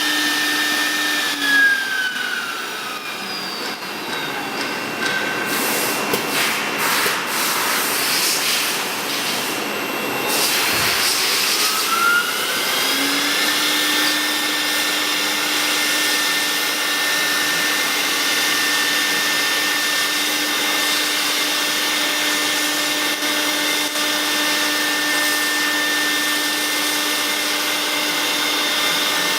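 CNC router spindle whining steadily, then winding down with a falling pitch. A stretch of hiss and clatter follows before the spindle spins back up with a rising whine near the middle and runs steadily again.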